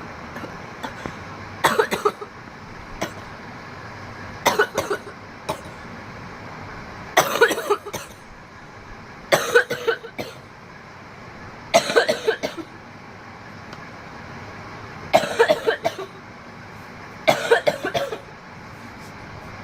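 A young woman coughing hard after a big hit of cannabis smoke: about seven fits spaced a couple of seconds apart, each a quick run of several coughs, over a steady background hiss.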